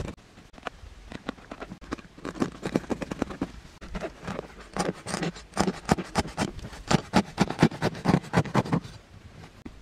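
Large knife blade scraping the skin off a big ridged gourd in quick repeated strokes, a few a second, growing louder and busier about halfway through and stopping shortly before the end.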